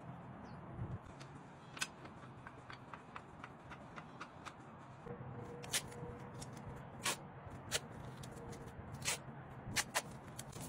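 Tape being pulled off the roll and pressed over a motorcycle's air cleaner by hand: irregular sharp clicks and snaps, with a few short rips in the second half.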